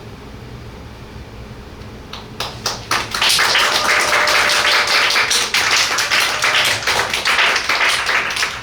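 Audience applause. The room is quiet for about two seconds, then scattered claps begin and swell within a second into full, steady applause.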